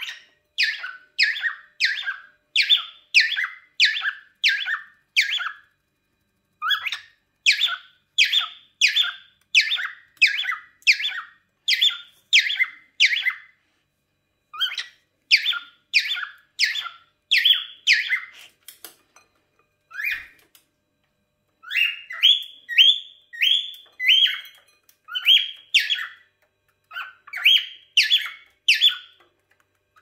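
Cockatiel calls: short, high-pitched, repeated at about two a second in long runs broken by a few brief pauses.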